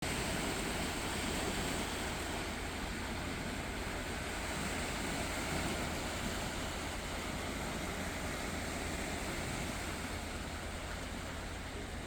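Calm sea with small waves washing in a steady, even hiss of water.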